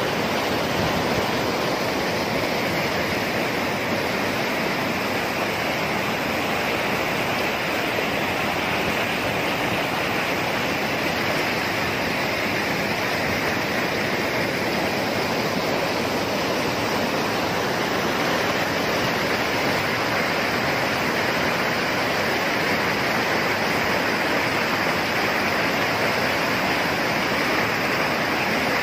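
Steady, even rush of fast-flowing water at a small crossflow micro-hydro turbine, with no separate machine tone standing out.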